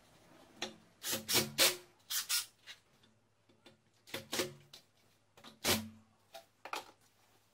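Cordless drill-driver driving screws through a wooden bracket into the wall in several short bursts.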